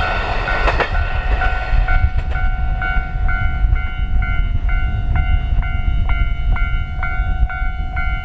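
Japanese level-crossing alarm ringing, an electronic bell struck in a steady repeating beat of about two and a half strikes a second. It sounds over a low rumble, with the last wheel clicks of the Kiha 54 diesel railcar in the first second.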